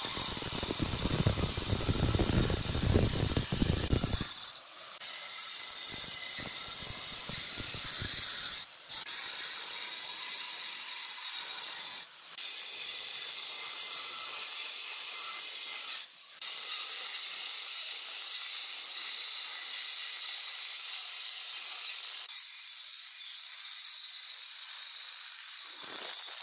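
Electric angle grinder with a sanding disc running against the edge of a granite slab, a steady high whine and hiss. It is louder and coarser in the first few seconds, then runs on more evenly with a few brief breaks.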